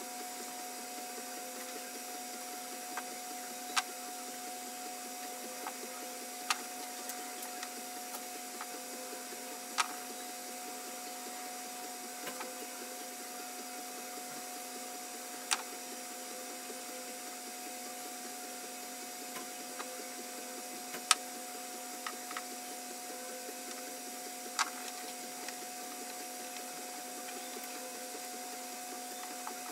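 Small hard 3D-printed plastic parts clicking sharply against each other and the table every few seconds as they are handled and fitted together, about six clicks in all, the loudest a little past two-thirds of the way through. Underneath is a steady machine hum with a constant whine.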